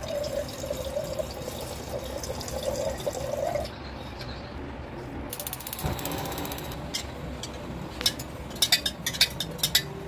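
Milk poured in a stream into a glass kettle, the filling sound rising a little in pitch over the first few seconds. Later comes a short burst of rapid ticking, then a series of sharp clinks near the end.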